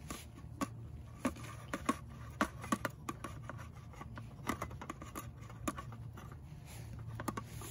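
Wax paper crinkling and rustling in irregular small clicks as a sheet of pre-cut pie pastry is peeled off it and laid into a small pie plate, with a low steady hum underneath.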